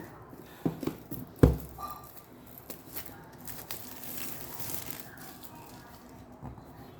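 Handling noises from unboxing an iPad: a few knocks of the box and its parts, the loudest about a second and a half in, then a rustle of packaging being slid and crinkled.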